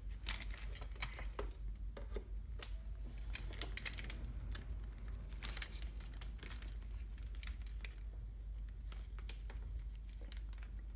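Irregular light clicks and rustling of a car-stereo wiring harness's wires and plastic connectors being handled, over a steady low hum.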